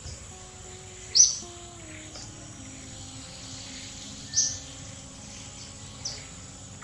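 Wild birds chirping: three short, sharp, high chirps a couple of seconds apart, over a steady background hiss.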